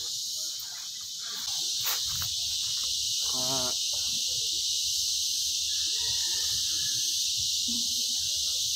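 Steady high-pitched chorus of insects, stepping up in loudness about a second and a half in. A short wavering call cuts in briefly about three and a half seconds in.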